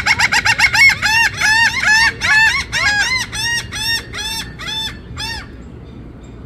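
Laughing gull giving its laughing call: a long series of short, arched notes, rapid at first, then slowing and fading, ending about five seconds in.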